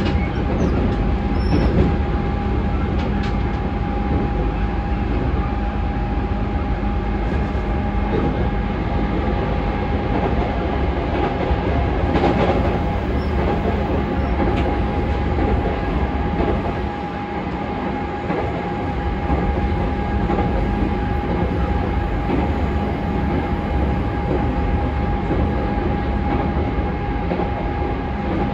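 Running noise of a JR Central 211 series 5000-subseries electric multiple unit heard inside the passenger car: a steady rumble of wheels on rail with a constant tone over it, easing briefly about two-thirds of the way through.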